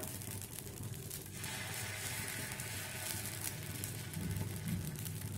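Dosa batter sizzling on a hot non-stick tawa, a low, steady crackling hiss.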